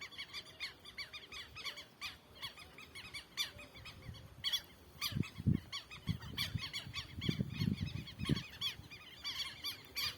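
A flock of wetland birds, southern lapwings among them, calling over one another in a dense run of short, repeated chirping calls. A few low rumbles come about halfway through.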